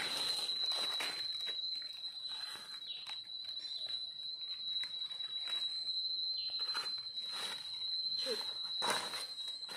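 Dry leaf litter rustling and crackling as it is stepped on and pushed aside by hand, in short scattered bursts, loudest near the start and again near the end. A thin, steady high-pitched whine runs underneath throughout.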